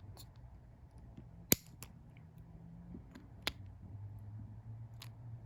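Sharp clicks and ticks of small plastic parts and a tool as a steering wheel button panel is pried apart: two louder clicks about two seconds apart, with a few fainter ticks, over a faint low hum.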